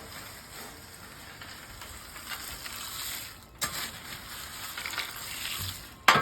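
Butter and snack mix sizzling on a hot Blackstone flat-top griddle, a steady soft hiss, with a sharp click about three and a half seconds in and another near the end.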